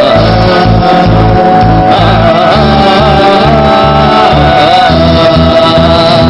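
Fusion rock band playing live, with singing: a melody that wavers and bends in pitch, carried over a steady, regular bass line and a held tone.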